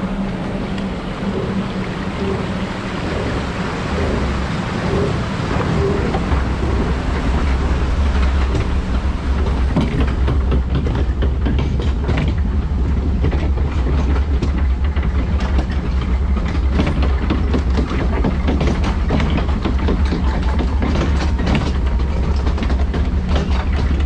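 Log flume boat hauled up a chain lift hill: the lift chain runs with a steady low drone and rapid clattering clicks under the hull. Water rushes in the trough at first, and the drone and clatter come in strongly after about six seconds, as the boat rides onto the lift.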